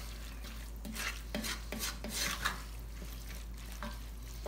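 Wooden spoon stirring a thick sautéed vegetable mixture in a cast-iron pot, with irregular soft scrapes and light knocks of the spoon against the pot.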